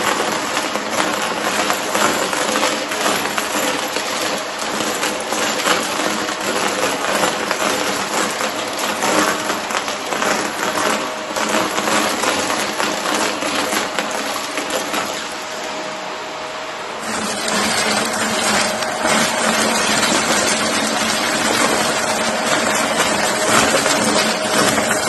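Shark vacuum cleaner running steadily while sucking up small pieces of cardboard, which rattle and click rapidly through it. The sound dips briefly about two-thirds of the way through, then picks up again.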